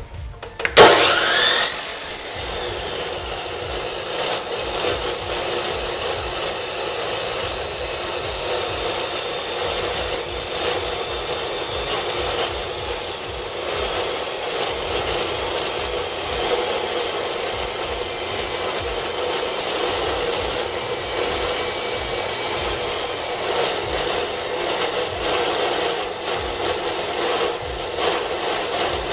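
Abrasive-wheel chop saw starting up about a second in, then its wheel grinding steadily through 1¼-inch round steel bar stock.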